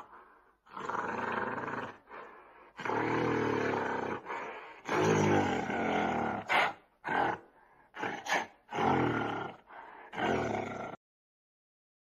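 Gorilla roars and grunts: a run of loud, rough calls, some long and some short, that stops about a second before the end.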